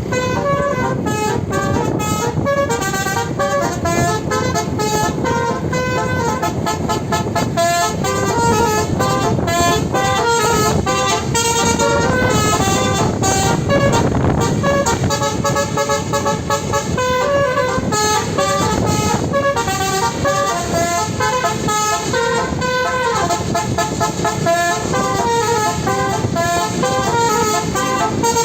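Indonesian bus 'telolet' musical horn playing a fast tune of short stepped notes, several horn tones sounding at once, repeated over and over.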